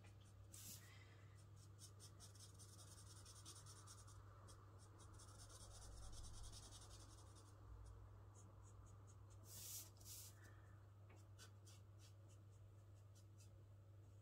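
Faint scratching of an alcohol marker's brush tip colouring across cardstock in many short, quick strokes, over a low steady hum.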